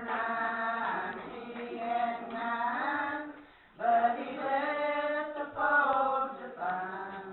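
Several women singing a worship song together in long, held lines, with a brief break about three and a half seconds in.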